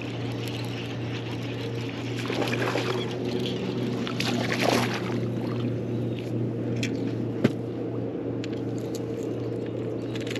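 A small hooked bass splashing at the water's surface as it is reeled in beside the boat and landed, with a steady low hum underneath and one sharp knock about seven and a half seconds in.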